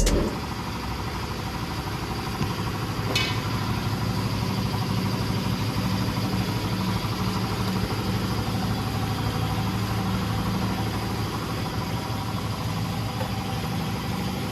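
An engine idling steadily with a low, even pulse, with one brief click about three seconds in.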